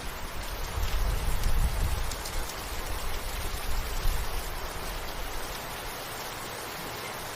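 Steady rain falling, an even hiss of drops, with a low rumble underneath for the first few seconds that then fades away.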